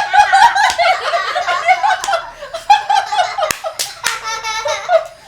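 A person laughing in quick high-pitched pulses, loud and nearly continuous, with a few sharp smacks mixed in.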